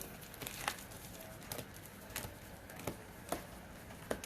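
Light taps and clicks of sealed foil trading-card packs being handled and set down on a table, about one every half second to a second.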